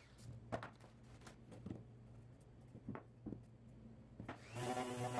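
A wooden box being handled on a workbench: a few light wooden knocks and taps as it is set down and turned, over a low steady hum. About four and a half seconds in, a DeWalt random orbital sander starts up again.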